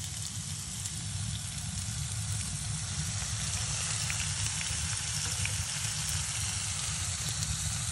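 Beef burgers and sliced onions sizzling steadily in a frying pan on a wood-burning stove, with a low steady rumble underneath and a few faint crackles.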